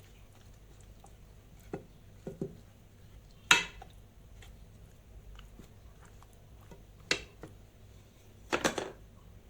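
A few short knocks and clatters of marinated beef pieces being placed into a pan, the loudest about midway and a double knock near the end.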